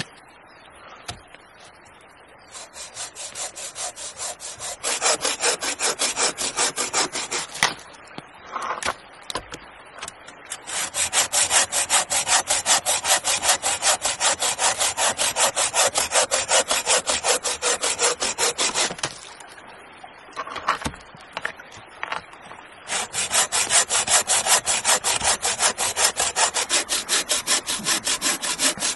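Hand saw cutting through a log of firewood in quick, even back-and-forth strokes. There are three long bouts of sawing, with short pauses between them.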